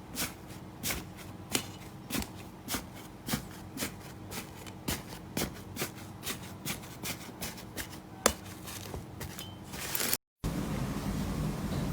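Slime being pressed and squeezed in a steady rhythm, each press giving a sharp click or pop, about two a second and speeding up slightly. Near the end it cuts to a denser, steadier crackling of slime.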